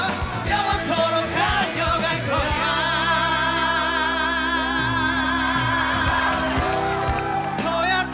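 Male singer with a live pop-rock band, holding one long note with strong vibrato through the middle, then starting a new phrase near the end.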